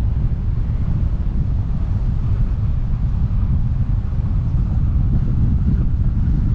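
Wind buffeting the microphone of a camera mounted on the outside of a moving car: a steady low rumble, with the car's road noise underneath.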